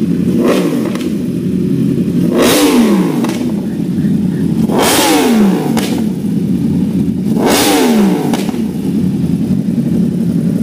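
Yamaha R1's crossplane inline-four idling and being revved in four throttle blips. There is a short one about half a second in, then three bigger ones about two and a half seconds apart, each rising in pitch and dropping back to idle.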